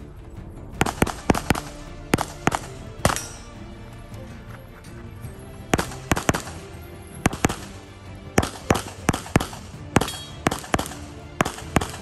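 Rapid 9mm pistol shots from a Canik SFx Rival, fired mostly in quick pairs in three bursts with a short pause after about three seconds. Background music plays under the shots.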